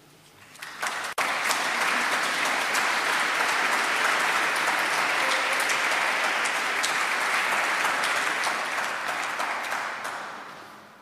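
Audience applauding: the clapping swells up within the first second or two, holds steady, then dies away near the end.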